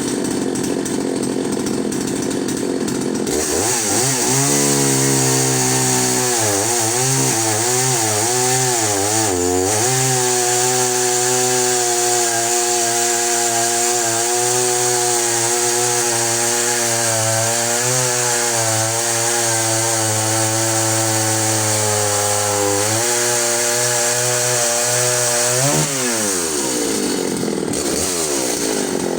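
Husqvarna Rancher 61 two-stroke chainsaw with a semi-chisel chain cutting through a larch log. The engine starts at high revs and is pulled down under load once the chain bites, its pitch wavering and then holding. Near the end it revs back up as the chain comes free of the cut.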